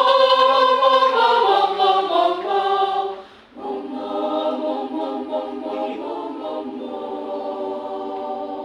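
A choir singing a phrase, breaking off briefly about three seconds in, then holding a long chord that fades near the end.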